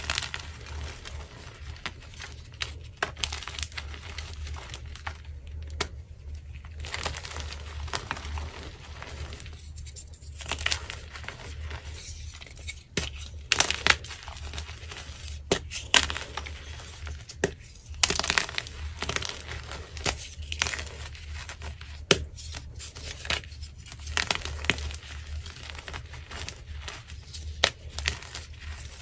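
Blocks of dyed gym chalk crushed and crumbled by hand: a continuous soft crunching and crackling, broken by many sharp snaps as chunks break apart.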